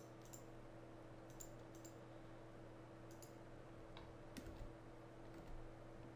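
Computer mouse clicking: about six sharp, scattered clicks over a faint steady low hum.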